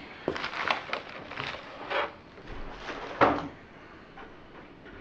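Cardboard box and packing being handled and moved: a run of short rustles and light knocks, the loudest a little over three seconds in, quieter after that.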